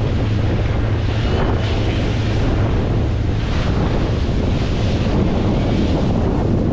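Strong wind buffeting the microphone on a moving boat, over a steady low drone from the boat and the rush of water.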